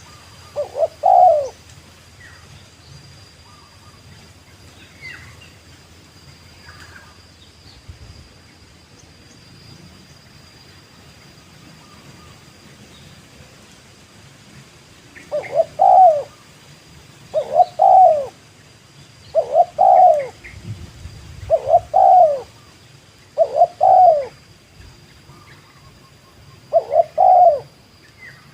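Spotted dove (tekukur) cooing: one call about a second in, then after a long pause a run of calls about every two seconds through the second half.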